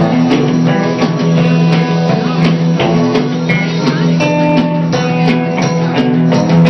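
Live band music with strummed guitar over sustained held notes.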